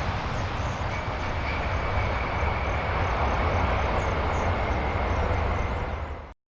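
Aircraft engines running with a steady low rumble and a faint high whine, cutting off suddenly near the end.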